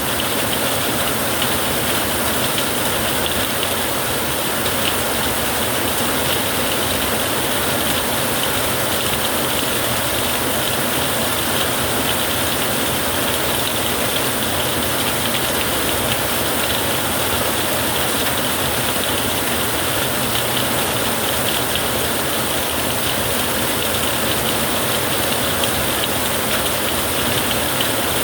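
Heavy rain falling steadily on a tin roof, an even, unbroken patter.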